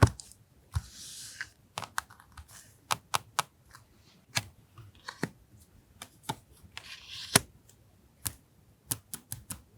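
Paper and stationery being handled on a desk: irregular sharp taps and clicks, with two brief paper rustles, about a second in and about seven seconds in.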